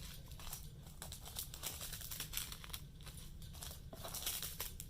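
Small plastic Ziploc bags of diamond painting drills crinkling as they are handled, in many irregular short crackles.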